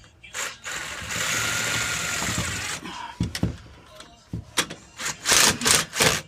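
Power drill driving a self-tapping screw through a steel hasp into plywood, running steadily for about two seconds. Near the end comes a run of short, loud bursts.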